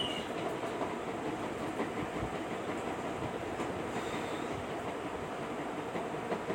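Steady rumbling background noise through a phone's microphone, with a brief high chirp at the very start.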